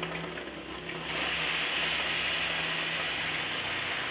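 Soaked rice vermicelli sizzling as it is dropped into a hot wok of fried egg; a steady hiss sets in about a second in and holds.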